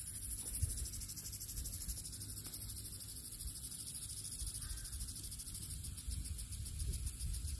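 Insects chirring steadily in a fast, even, high-pitched pulse, over a low rumble of wind on the microphone.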